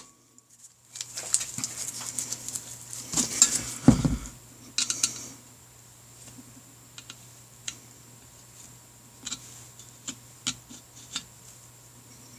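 Small metal tools and parts clinking and scraping on a hard surface, busy for the first few seconds with a louder knock near the middle, then only a few scattered light ticks.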